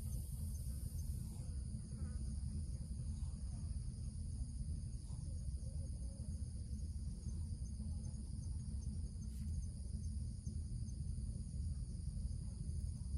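Steady outdoor insect chorus, several high, even buzzing tones at once, one of the highest dropping out about a second in, over a low rumble.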